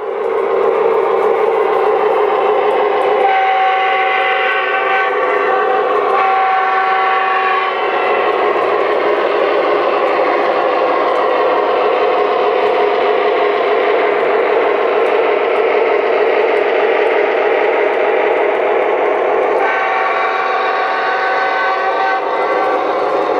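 Lionel O-gauge Alco RS-11 diesel model running, its onboard electronic sound playing a steady diesel engine drone. The horn sounds in a few blasts about three seconds in and again near the end, over the faint clicking of wheels on the track.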